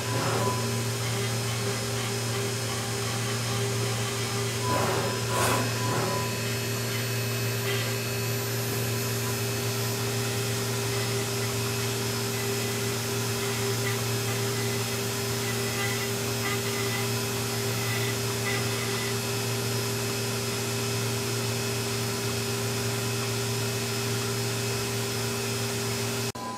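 5-axis CNC milling machine running steadily while its spindle and tapered cutter mill a laminated katsura wood carving: an even whirring machine noise with a steady hum. It briefly swells louder near the start and again about five seconds in.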